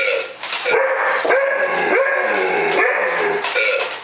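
Six-month-old Alaskan malamute vocalizing: a run of pitched, wavering calls that rise and fall every fraction of a second, starting suddenly and pausing briefly near the end.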